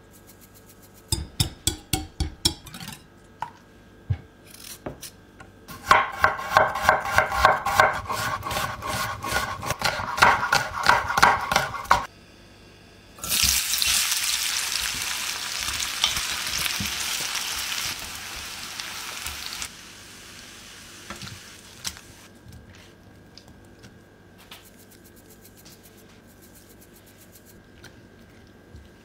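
A few taps, then eggs beaten fast in a glass bowl, quick clinks ringing against the glass for about six seconds. Onion slices then go into hot oil in a frying pan and sizzle loudly, slowly dying down over several seconds, followed by quiet scrapes and taps of a spatula mixing.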